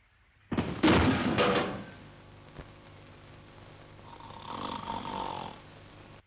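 A man snoring: a loud snore about half a second in, then a softer one near the end.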